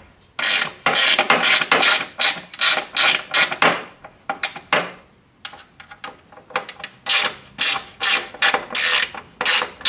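Ratcheting driver with a T10 Torx bit clicking in quick runs of strokes while it backs out the small screws of a C6 Corvette headlight assembly, pausing briefly in the middle.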